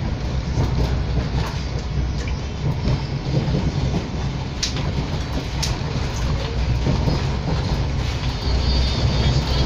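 Passenger train running, heard from inside the carriage: a steady low rumble of wheels on the track, with two sharp clicks about halfway through.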